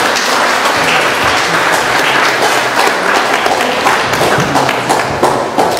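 Audience applauding: steady, continuous clapping from many hands.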